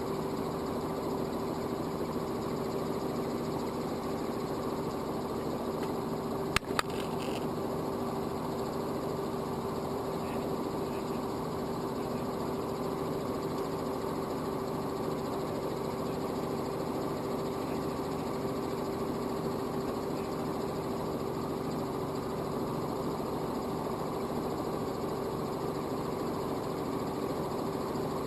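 Robinson R44 helicopter's piston engine and rotors running as a steady, unchanging drone with one constant tone through it. A brief sharp click a little over six seconds in.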